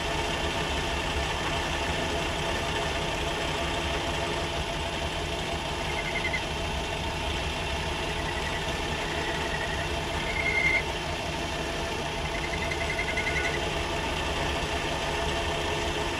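Myford metal lathe running steadily while taking a lubricated cut on a metal drive shaft. Short, high rasps from the cutting tool come several times in the second half.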